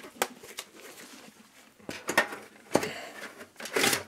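Light clicks, knocks and short scrapes from gloved hands handling a DVD burner drive and tools in the steel drive bay of a desktop PC case. The longest scrape comes near the end.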